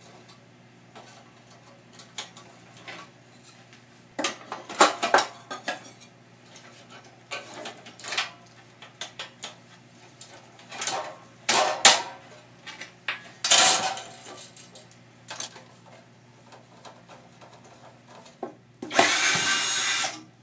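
Metal clinks, knocks and scrapes of a screwdriver and hands working wires loose from steel electrical junction boxes. Near the end a cordless drill/driver runs in one steady burst of about a second and a half.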